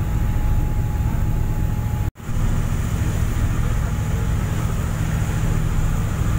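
Steady low rumble and rush aboard the moving ship KM Glorry Merry: engine noise mixed with wind and the churning wake water. The sound cuts out for an instant about two seconds in.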